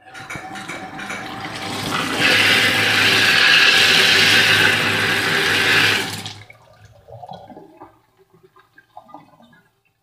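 Tap water running and splashing onto a washing machine's inlet filter screen held under the stream, rinsing off the dirt clogging it. The flow grows stronger about two seconds in and stops about six seconds in, leaving faint handling sounds.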